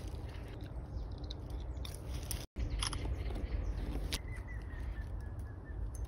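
Low wind rumble on the microphone with scattered light crackles and clicks from handling a twig and dry leaves. The sound cuts out completely for a moment about two and a half seconds in.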